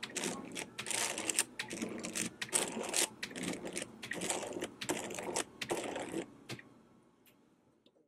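Stepper motors turning the layers of a speed cube in quick succession. Each turn is a short whirring clatter of motor and plastic, and the turns stop about six seconds in.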